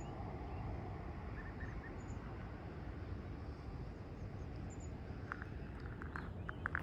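Outdoor ambience: a steady low rumble with faint, scattered bird chirps, and a few sharp clicks near the end.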